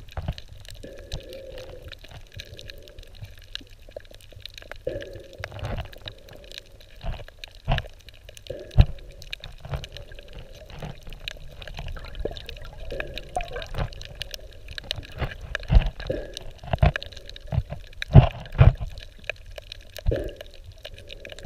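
Muffled underwater water noise, recorded with the camera just below the surface: water sloshing and bubbling against the camera, with irregular dull thumps.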